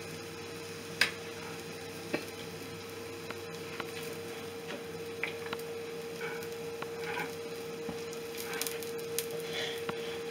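Dosa sizzling on a hot flat tawa as ghee is drizzled over it, with a steady faint hum underneath. A few light clinks, the loudest about a second in and another about two seconds in.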